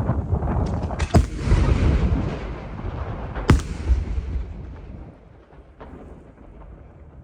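Aerial firework shells bursting: two sharp bangs, about a second in and again about two and a half seconds later, over a dense crackle and rumble of other bursts that dies away after about five seconds.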